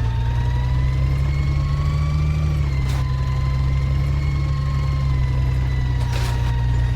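Truck engine running steadily, with a mechanical whine that climbs slightly and then eases back down. Two short knocks come about three and six seconds in.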